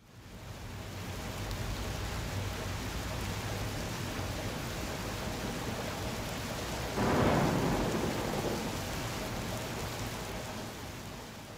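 Steady rushing noise like rain, fading in at the start, with a louder swell of noise about seven seconds in that then eases off toward the end.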